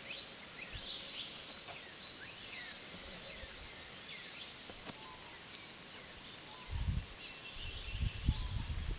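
Outdoor ambience with small birds chirping repeatedly in short, quick descending calls. Low rumbling buffets, like wind on the microphone, come in for the last couple of seconds.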